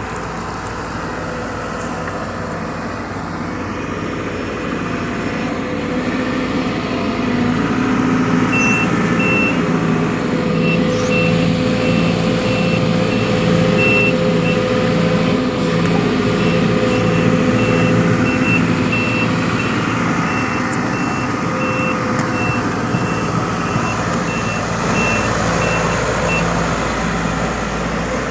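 Sumitomo SH210 excavator's diesel engine running steadily, growing louder about six seconds in. A high, evenly repeating beep, typical of the excavator's travel alarm, sounds from about eight seconds in until near the end.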